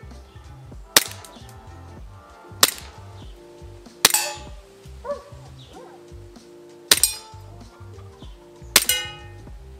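Suppressed KP-13 airsoft gas pistol firing five single shots about two seconds apart, the BBs hitting targets with sharp cracks, several of them ringing clangs.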